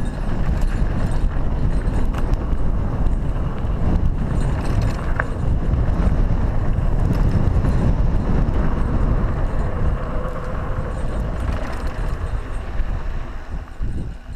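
Mountain bike riding fast over a dirt trail: tyres rumbling on the packed dirt and the bike rattling over bumps, under heavy wind rumble on the camera's microphone. The noise eases briefly near the end.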